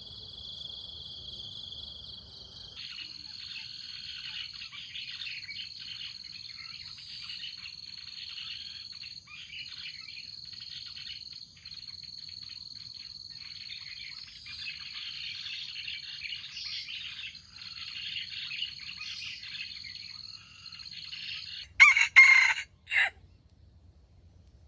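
Small birds chirping busily over a steady high insect drone, then a junglefowl rooster crows once, loud and short, broken into three parts near the end.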